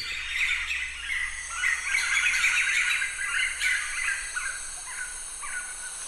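White-fronted nunbird (Monasa morphoeus) calling: a dense run of many short, overlapping notes over a steady high background hiss.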